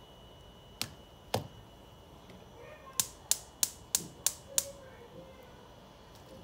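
Sharp clicks: two single clicks, then a quick even run of six, about three a second.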